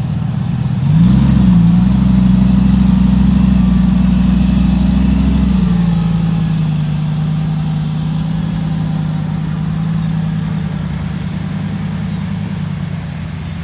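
Car engine: a short rev about a second in, then a steady engine note that drops a little in pitch about six seconds in and slowly gets quieter.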